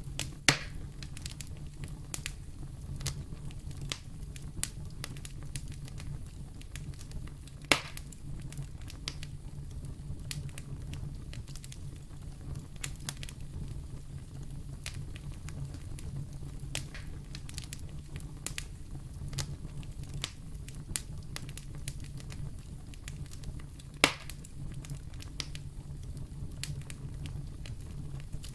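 Fire burning in a fireplace: a steady low rumble with constant small crackles and three loud pops, the first just after the start, one about eight seconds in and one near 24 seconds.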